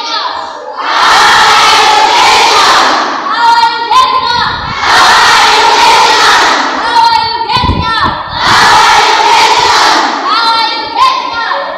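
A class of students shouting in a call-and-response game. A short pitched call is answered each time by a loud shout from the whole group, about every three and a half seconds.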